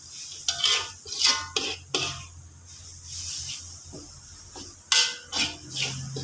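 Slotted metal spatula scraping and stirring dry grated coconut around a metal wok as it is dry-fried into serunding: quick scrapes and clinks against the pan, some briefly ringing, in a flurry over the first two seconds and again about five seconds in.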